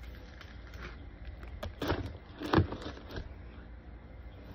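Plastic slime containers knocking against each other and a plastic storage bin as they are packed in: a few light clicks, then two louder knocks about two and two and a half seconds in, over a low steady rumble.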